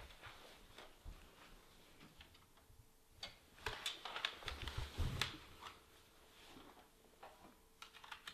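Light clicks, taps and knocks of a laptop and its cable being handled and plugged in, busiest between about three and five seconds in, with a low thump around five seconds. A faint steady hum runs underneath.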